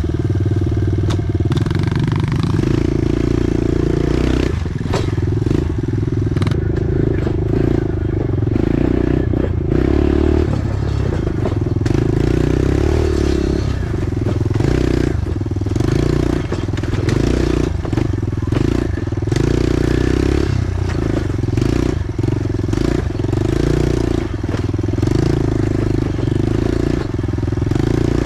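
Pit bike engine running under throttle, its note rising and falling again and again as the bike is ridden along a bumpy dirt trail. Rattles and knocks from the bike over the rough ground run through it.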